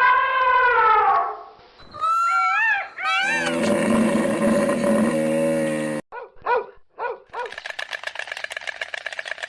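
Puppy howling, yipping and whimpering in several short pieces that stop abruptly. It opens with a long falling howl, then gives a few rising-and-falling yips, a held whine, more short yips, and near the end a fast, stuttering run of short whimpers.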